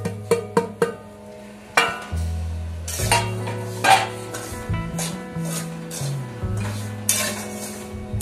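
A metal spoon stirring and scraping dry semolina in an aluminium kadhai, over background music with a changing bass line.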